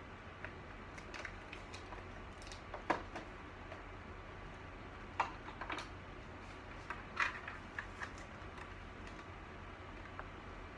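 Computer keyboard keys being pressed in irregular, scattered clicks, with a few louder taps in the middle stretch.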